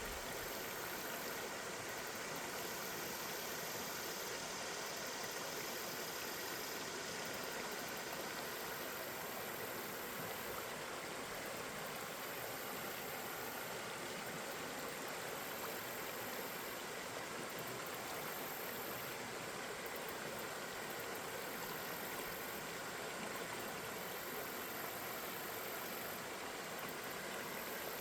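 River water flowing, a steady even rushing.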